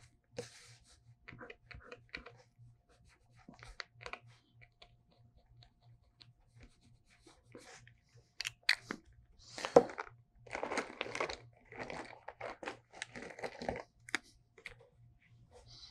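Faint dabbing and scratching of a pen tip on paper. About ten seconds in comes a louder spell of rustling and clicking as the pen is put down and a brush pen picked up.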